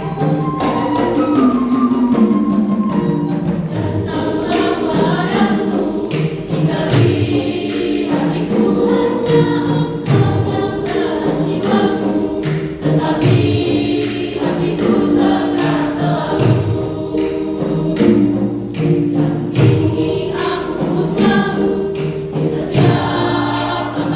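School choir singing a hymn in several voices, with a steady beat underneath.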